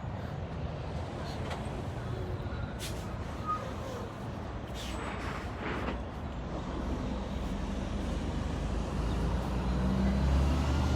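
Low rumble of a running vehicle engine and road traffic, growing louder near the end, with a few short hisses in the middle.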